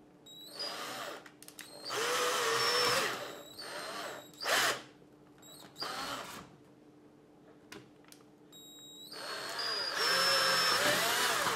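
Cordless drill boring full-size holes through a synthetic rifle stock, a plastic shell filled with foam. It runs in several short bursts, the motor's pitch rising and falling with the trigger, and the longest, loudest burst comes near the end.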